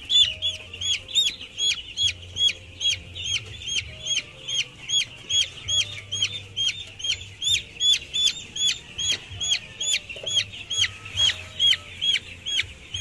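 Broiler chicks peeping without pause: a fast run of short, high, rise-and-fall peeps, about four a second.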